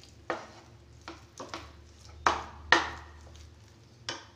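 Wooden spatula scraping and knocking against a nonstick frying pan while stirring mawa (khoya) as it roasts: a series of short, irregular scrapes and taps, about seven in all.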